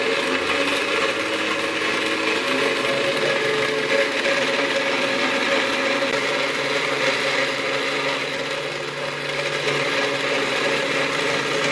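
Homemade mixer grinder running steadily at its third speed with a coconut-grating attachment, scraping coconut: a continuous whir with a few held tones.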